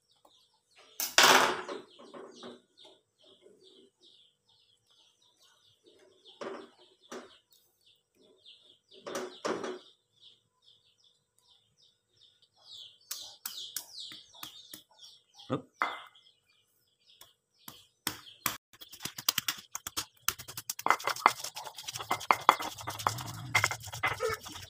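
Spices being ground on a flat stone slab with a round stone pestle: fast, rough stone-on-stone scraping and knocking that starts about three-quarters of the way in and grows louder. Before it there are a few separate knocks as the spices and stone are handled, with small birds chirping in the background.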